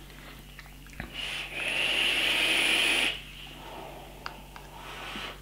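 A click about a second in, then a two-second hissing draw of air through a Pulse 24 rebuildable dripping atomizer on a Pulse BF bottom-feeder vape mod, followed by a softer, breathy exhale of vapour.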